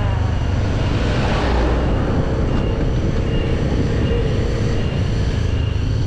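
Motorcycle under way: steady engine and road noise with heavy wind rumble on the microphone, and a swell of rushing noise about a second in.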